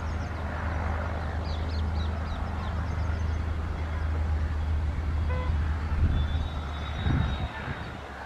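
EMD WDG4 diesel locomotives' two-stroke engines running light and approaching, a steady deep drone. A brief horn toot about five seconds in, and two low thumps near the end.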